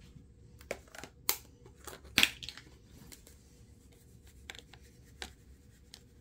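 Spice shaker jars handled while seasoning raw ribs: scattered sharp clicks and taps of the jars and their caps, the loudest about two seconds in, over a faint steady low hum.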